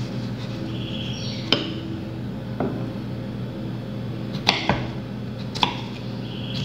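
Kitchen knife cutting peeled potatoes into cubes on a wooden cutting board: about five sharp knocks of the blade striking the board, irregularly spaced, over a steady low hum.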